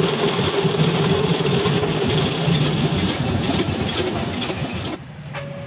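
Workshop press machine running, a steady mechanical hum with a low drone, easing off about five seconds in.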